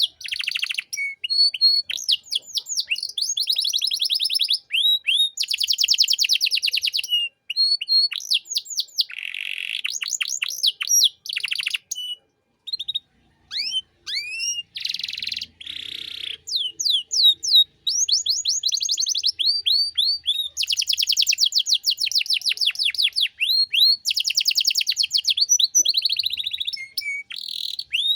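Domestic canary singing a long, varied song: fast trills of repeated downward-sweeping notes, in phrases broken by brief pauses and single whistled notes.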